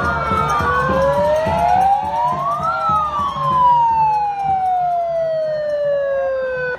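Police sirens wailing, more than one slow rising-and-falling wail overlapping. The clearest one climbs for about two seconds, then falls slowly over about four.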